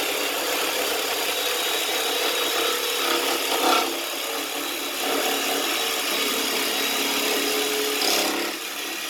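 Older Milwaukee jigsaw with a repaired blade yoke running steadily as it cuts through a piece of PVC, with brief louder surges about three and a half seconds in and near the end. This is a load test of the repaired yoke.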